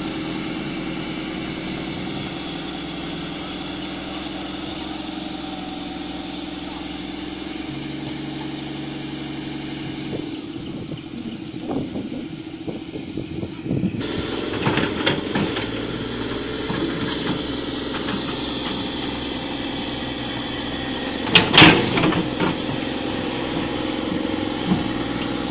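Heavy-equipment diesel engine running steadily, its sound shifting partway through, with a sharp metallic clank near the end.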